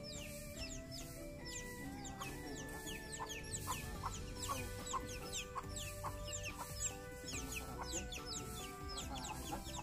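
Chickens clucking, with many short, high, falling chirps several times a second, over background music.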